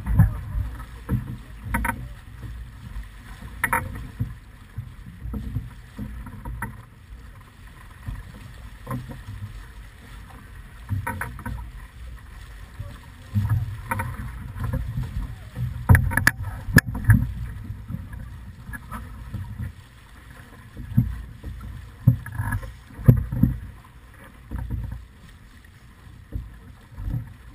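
Wind buffeting the microphone and water rushing past the hull of a sailing yacht heeled over and under way, a gusty low rumble, with scattered sharp knocks and clicks, the loudest past the middle.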